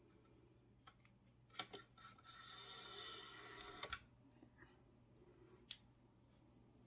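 Near silence, with a few faint clicks and a soft rustle from about two seconds in to about four seconds in: hands handling a sewing machine while untangling jammed thread to re-thread it.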